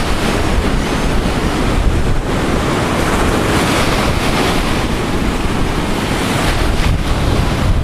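Storm surf breaking and washing up a sandy beach, a steady rushing noise, with wind buffeting the microphone as a low rumble.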